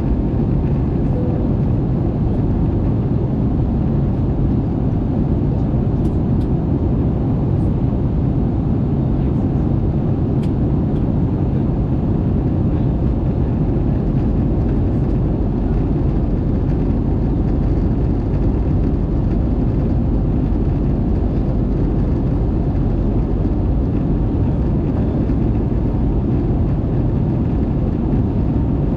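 Steady cabin noise of an Airbus A220 in flight, heard inside the cabin: an even, deep rush of airflow and its Pratt & Whitney PW1500G geared turbofan engines running at a constant setting.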